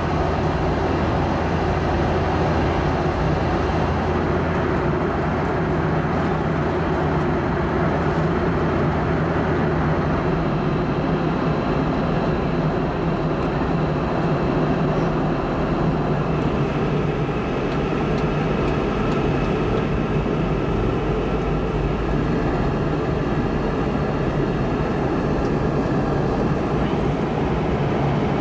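Cabin noise inside a Boeing 717 in flight: the steady drone of its rear-mounted Rolls-Royce BR715 turbofans and rushing airflow. A low hum in the drone drops out about ten seconds in.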